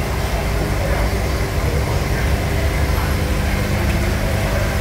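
Steady low mechanical hum over a rumble.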